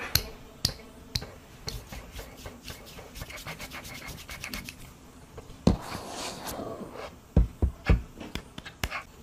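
Handling noises: scratching and rubbing with many sharp clicks, a louder swish about six seconds in, and a few heavy thumps shortly after.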